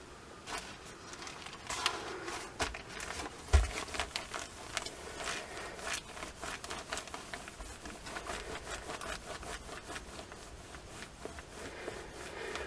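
Sheets of newspaper rustling as they are handled, then a clothes iron sliding back and forth over layered newspaper: a dry rubbing with many small crackles and clicks. A low thump about three and a half seconds in.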